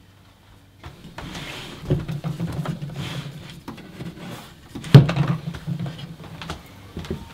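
A chest-of-drawers drawer pulled open with a rattling slide about two seconds in, then pushed shut with a bang a few seconds later, the loudest sound, followed by a short rattle.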